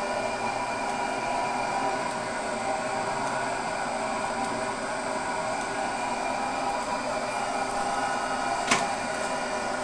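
Metal lathe running steadily with a Mitsubishi 6G75 V6 crankshaft turning in it, a constant mechanical whir with a few steady whining tones. One short click near the end.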